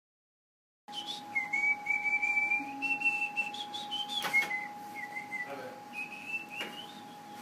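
A whistled tune of held notes stepping up and down, over a steady high hum. It cuts in abruptly about a second in.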